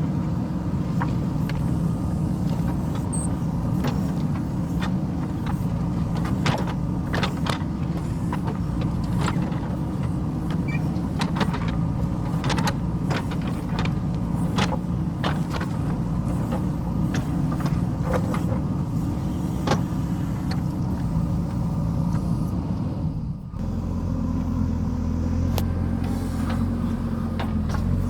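JCB backhoe loader's diesel engine running at work, with frequent short knocks and clanks over it. About three quarters of the way through the sound changes abruptly to a steadier, deeper engine tone without the knocks.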